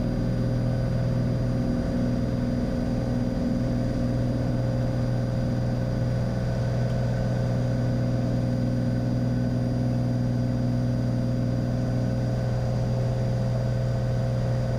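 Cessna 182 Skylane's engine and propeller droning steadily at full takeoff power during the initial climb just after liftoff, an even, unchanging cabin drone.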